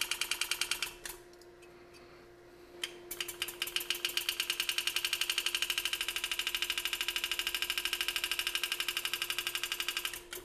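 Enset pneumatic engraving handpiece hammering a graver through metal while cutting a flare cut: rapid, even strokes. They stop for about two seconds around a second in, with a few single taps, then resume and run until just before the end.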